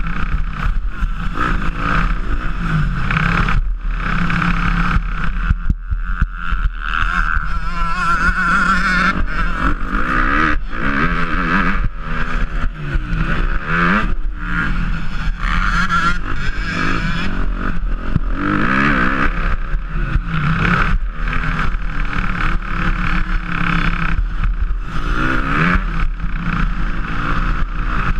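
Motocross dirt bike engine revving hard at race pace, its pitch repeatedly climbing and dropping as the throttle is worked, heard up close from a camera on the bike.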